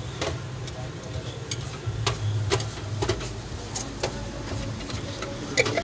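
Steady low engine-like rumble of street background noise, with scattered light clicks and clinks of serving utensils against plates and steel bowls.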